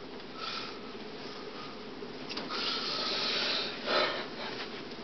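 Faint rustling and rubbing of someone moving about, with a slightly louder stretch past the middle and a short rustle about four seconds in.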